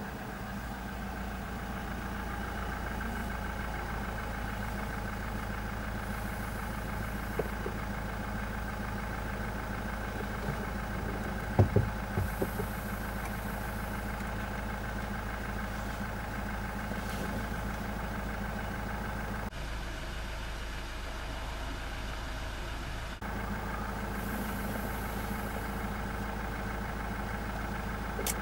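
Car engine idling steadily, with a few short knocks near the middle.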